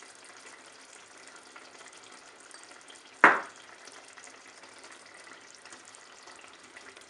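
Fish curry simmering in a nonstick pot, a steady soft sizzling hiss. About three seconds in there is one sharp, loud knock.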